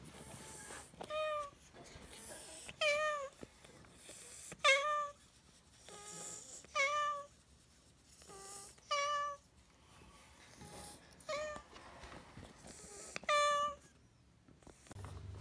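Cat meowing over and over: about seven short, clear meows roughly every two seconds, with a few fainter ones in between.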